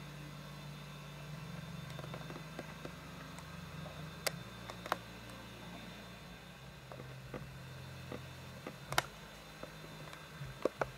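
Camcorder running noise: a steady low hum with a few sharp clicks from handling the camera.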